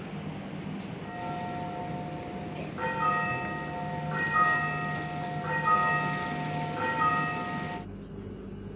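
A station chime plays a short melody of sustained, bell-like notes, changing pitch about every second and a half. It starts about a second in and stops near the end. Under it runs the low steady hum of the train standing at the platform.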